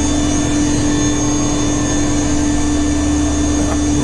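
A workshop machine's electric motor running steadily, a loud constant hum with a high whine over it and no change in speed or load.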